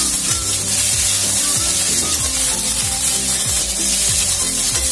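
Metal spatula stirring and scraping vegetables around a steel kadhai, with the sizzle of the vegetables frying in oil. Background music plays underneath.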